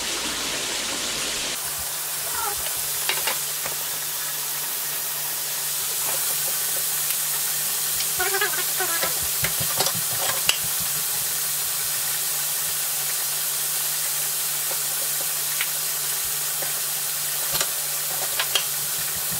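Hot oil sizzling steadily in a twin-basket electric deep fryer with french fries frying, with scattered pops and crackles throughout.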